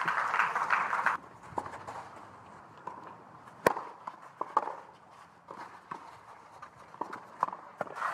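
Crowd applause that cuts off abruptly about a second in, followed by a quiet tennis court with scattered short knocks of footsteps and tennis ball bounces on clay, including one sharp crack about midway.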